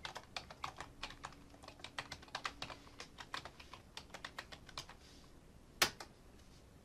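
Typing on a computer keyboard: a quick, uneven run of key clicks for about five seconds, then one louder click near the end.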